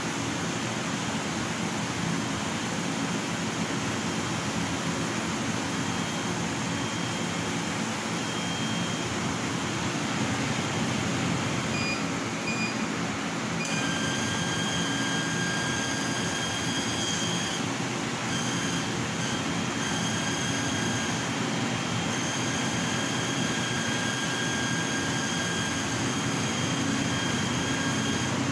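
Bao Yuan Tong CNC laser cutter running: a steady rushing drone of the machine at work, with thin high whines that come and go from about halfway in as the cutting head travels.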